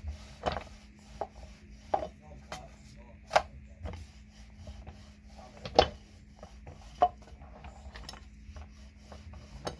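Rolling pin rolling over dough and knocking on the board as the dough is rolled out: irregular sharp knocks, the loudest about a third of the way in and just past the middle.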